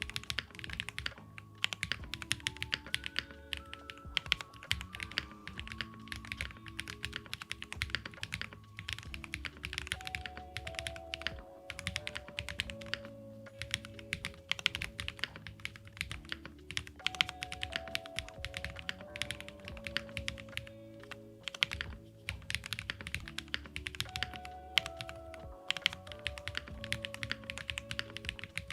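Fast, continuous typing on a mechanical keyboard with JWK Graphite Gold linear switches, FR4 plate and GMK keycaps, a dense run of key clacks with short pauses, over background lo-fi music with a melody and bass line.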